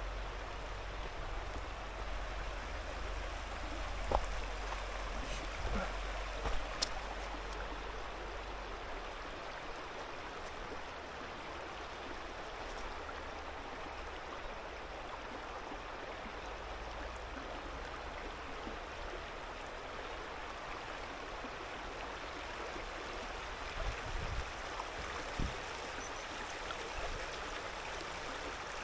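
Shallow river running over stones: a steady rush of flowing water, with a low rumble under it for the first third and a few brief low thumps.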